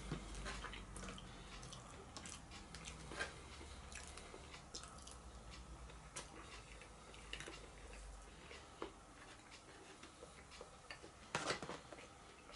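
Faint close-up eating sounds: chewing, with scattered small clicks and scrapes of a metal fork against a cardboard takeaway box of roast vegetables. A louder run of clicks comes near the end.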